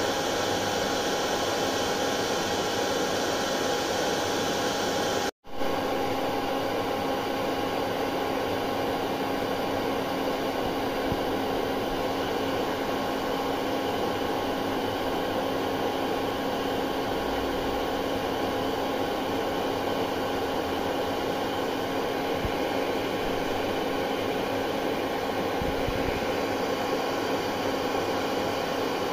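Hair dryer running steadily: an even rush of blown air with a constant motor hum, cutting out for a split second about five seconds in.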